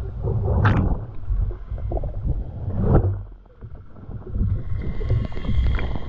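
Surf heard through a camera held underwater: muffled, irregular rumbling and churning of water, with a brief lull about three and a half seconds in.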